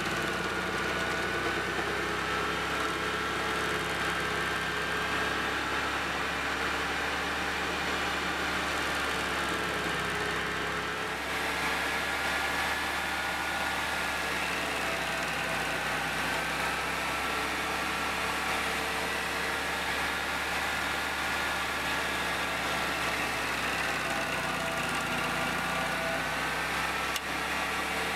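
Stump grinder's engine running at speed while its cutting wheel grinds into a tree stump, the engine pitch wavering slightly as the wheel bites.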